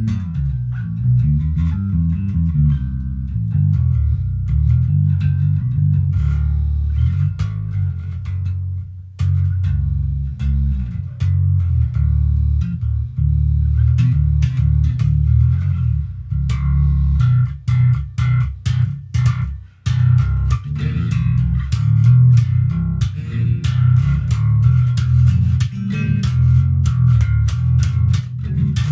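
Squier Affinity Series six-string electric bass played fingerstyle, a run of deep, changing bass notes, with a stretch of short, choppy notes and brief gaps about two-thirds of the way through.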